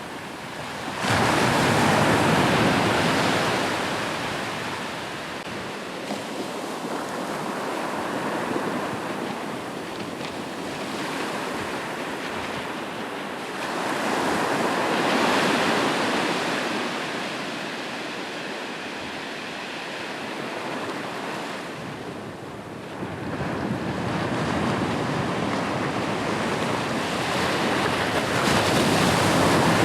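Ocean surf breaking on a shore, the rushing noise surging with each wave, four times, and ebbing between, with some wind on the microphone.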